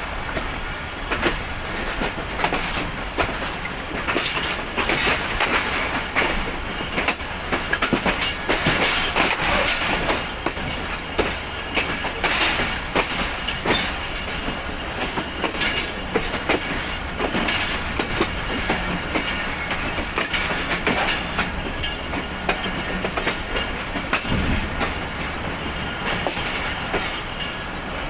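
Passenger train coach wheels clattering over rail joints and pointwork, with the steady running rumble of the moving carriages, heard from an open door of the coach as the express runs into a station.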